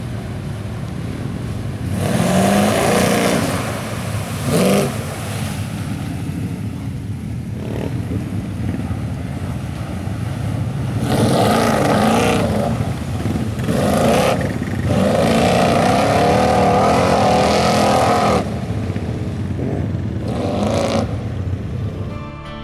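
Lifted square-body Chevy Blazer's engine revving hard in repeated surges over a steady low rumble as its tires churn through mud and water, the longest surge lasting about three seconds.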